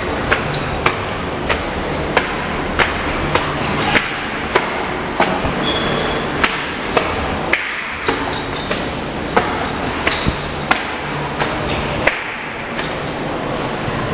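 Footsteps on hard stair treads: one sharp step about every 0.6 seconds, with a few breaks in the rhythm, over a steady background hiss.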